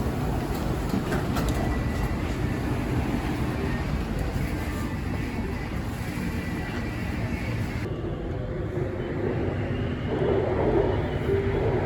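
Bangkok MRT underground train running between stations, heard from inside the carriage: a steady rumble of the wheels on the rails. About ten seconds in, a low whine joins it.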